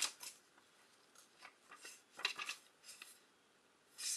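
Pages of a paperback book being handled and leafed through: a string of faint, short rustles and ticks.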